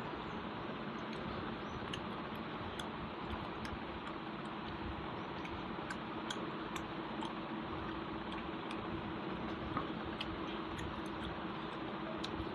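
Eating sounds by hand from a steel plate: scattered small soft clicks of fingers working rice and curry and of chewing, over a steady background hiss with a faint hum.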